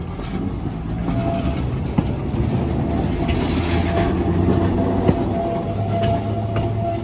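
Electric trolley car under way, its traction motors humming with a steady whine that grows stronger, and wheels on the rails. Two sharp clicks sound about three seconds apart.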